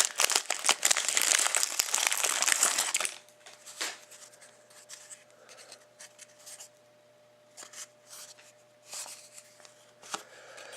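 Trading-card pack packaging being crinkled and torn open for about three seconds, then only faint, scattered rustles and light clicks as the cards are handled.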